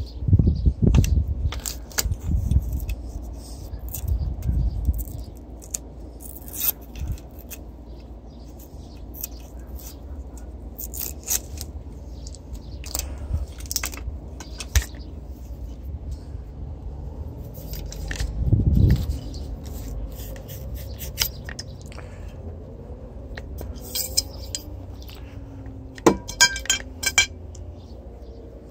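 Hand work with tools and small metal parts: scattered clicks, scrapes and light knocks, with a few low thumps. Near the end come a quick run of ringing metallic clinks.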